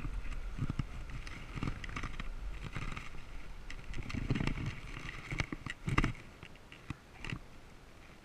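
Wind buffeting the microphone of a bike-mounted action camera while cycling, with knocks and rattles from the bicycle on the road. A louder knock about six seconds in, then the wind noise drops away as the bike comes to a stop.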